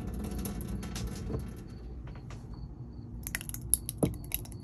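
Light clicks and clinks of cookware being handled: a small metal camp-stove pot and a glass jar of sauce set down and picked up. A low rumble at first, then a quick cluster of clicks in the last second and a half, one sharper than the rest.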